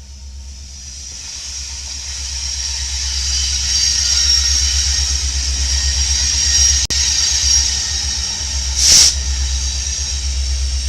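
A train passing a trackside camera: a steady low rumble and a high hiss build over the first few seconds and then hold. There is a brief gap near seven seconds and a short, sharp hiss about nine seconds in.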